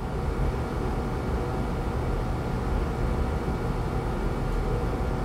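Steady low mechanical rumble with a few faint humming tones above it, an even background drone with no distinct events.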